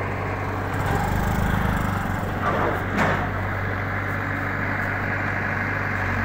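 Diesel engine of a backhoe loader running steadily, rising briefly about a second in, with a sharp knock about three seconds in.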